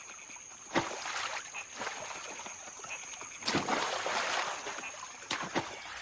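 Water splashing as macaques jump into and through a shallow river: a splash about a second in, a bigger one around the middle, and another near the end, over a faint steady high-pitched whine.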